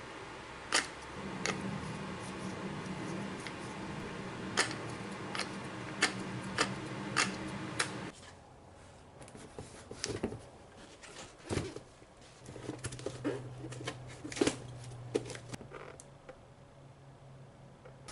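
Scattered sharp clicks and clinks of hand tools and metal parts during car repair work, over a steady low hum that cuts off about eight seconds in and comes back for a few seconds later.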